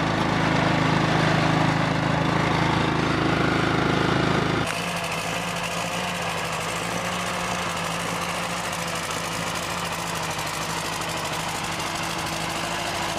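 A John Deere riding lawn mower's engine running steadily, cut off abruptly about four and a half seconds in by a small vintage farm tractor's engine running at a steady, lower-pitched pace and somewhat more quietly.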